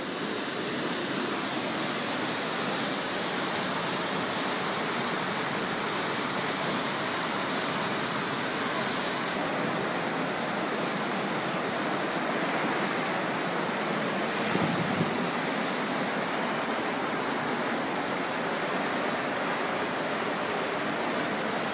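Fast-flowing flash-flood water rushing down a street in a torrent: a steady, even rush of water.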